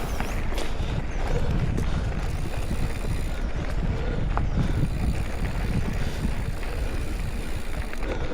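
Riding noise from a hardtail mountain bike on the trail: steady wind rush and rumble over the chest-mounted action camera's microphone, with tyre noise and a few light clicks and rattles from the bike.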